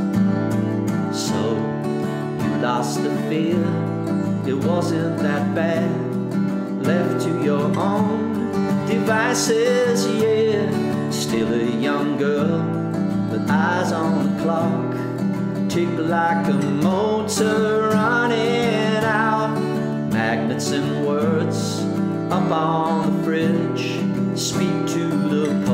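Solo steel-string acoustic guitar strummed and picked in a steady song accompaniment, with a voice carrying a melody over it at times.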